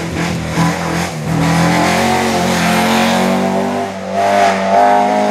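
Alfa Romeo 33 flat-four boxer engine revving hard under racing load through a corner. Its note holds, then steps to a new pitch twice, as gears change.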